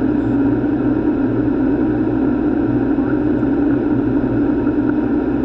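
Steady, unchanging in-flight noise on a Boeing 737 flight deck: a deep rush of airflow and engine noise.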